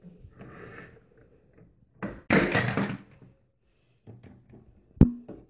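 A loud rustling noise lasting under a second about two seconds in, then a toy hitting the floor with one sharp knock and a short ringing tone about five seconds in.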